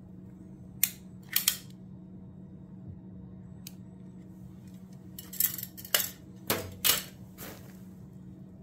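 Several brief crinkling rustles of nylon tent fabric being handled: two about a second in, then a cluster a few seconds later, over a steady low hum.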